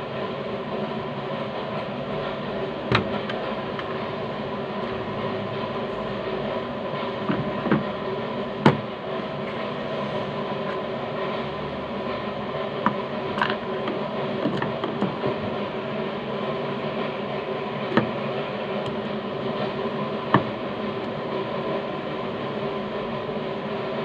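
A steady mechanical drone with several fixed tones. Over it come a handful of sharp clicks and knocks from a screwdriver and hands working on a car door's interior trim panel.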